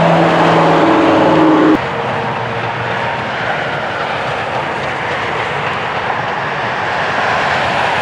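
A motor vehicle's engine running with a steady hum that breaks off abruptly about two seconds in, leaving a steady rushing noise of outdoor traffic or wind.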